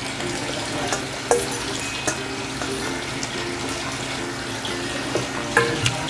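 Metal spoon clinking and scraping in a stainless steel bowl during eating, a few sharp clinks over a steady background hiss and hum.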